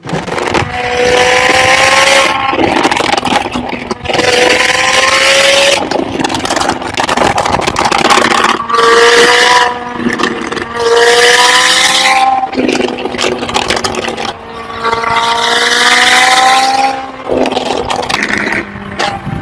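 McLaren supercar's twin-turbo V8 under hard acceleration. The revs climb and break off every couple of seconds as it shifts up, again and again.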